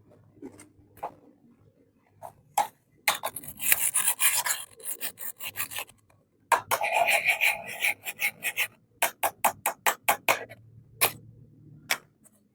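Miniature plastic kitchen toys and their packaging handled up close: two stretches of scratchy rubbing, then a quick run of sharp clicks at about five a second near the end.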